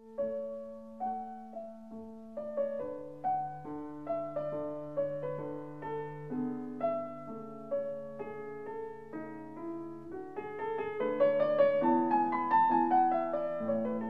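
Background piano music: a slow melody of single struck notes over held lower notes, growing louder and busier a few seconds before the end.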